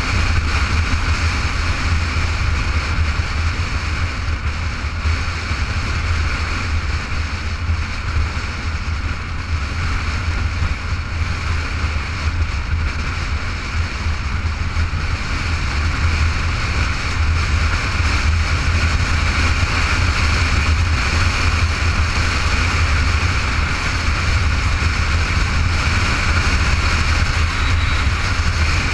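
Motorcycle at steady cruising speed: wind rushing over the microphone with the low drone of the bike's engine underneath.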